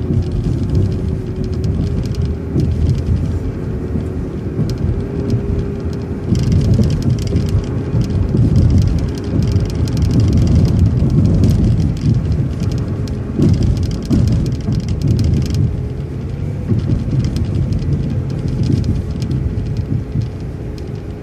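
City transit bus driving along a road, heard from inside: steady engine and road rumble with a constant mid-pitched whine from the drivetrain.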